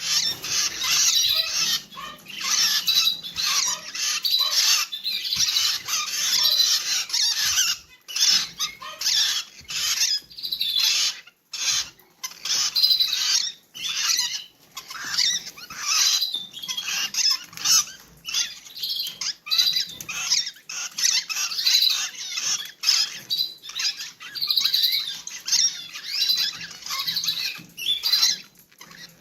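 Rosy-faced lovebirds calling: a dense, unbroken run of high-pitched chirps and squeaks, pausing briefly twice.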